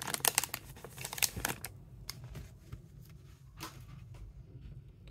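Panini Prizm baseball cards being handled and flipped through: a quick run of clicks and rustles for about the first second and a half, then only a few scattered taps.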